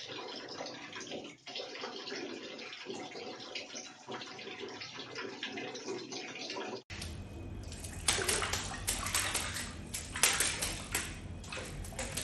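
Water splashing steadily as a parrot bathes. After a cut about seven seconds in, a run of louder, short splashes comes, typical of the bird fluttering its wings in the water.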